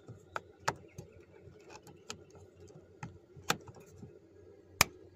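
Small plastic bolt cover being pressed into a pickup's interior door pull handle: several light plastic clicks and taps, then one sharp snap near the end as it snaps into place.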